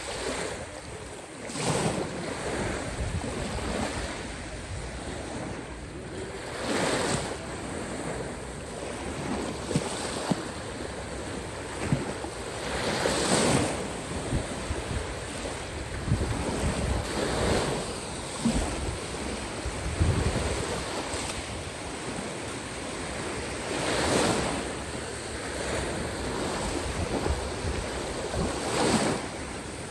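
Caspian Sea waves washing in, swelling louder every few seconds, with wind rumbling on the microphone.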